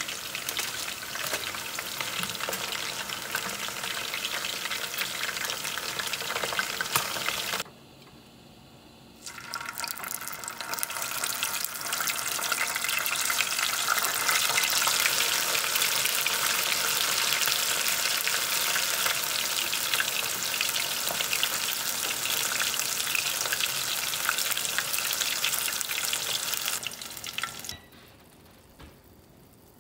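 Chicken pieces (Japanese-style karaage) deep-frying in hot oil, a dense crackle and sizzle. It cuts out briefly about eight seconds in, then comes back louder and busier for the second fry on high heat, and falls away near the end.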